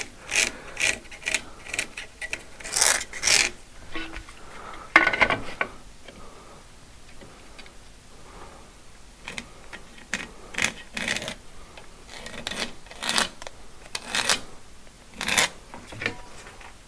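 Pencil scratching marking lines on brickwork, in short strokes with pauses between, plus a single knock about five seconds in.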